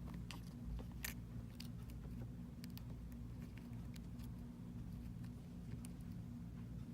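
Small sharp clicks and taps of a smartphone and repair tools being handled during reassembly, the clearest about a second in, over a steady low hum.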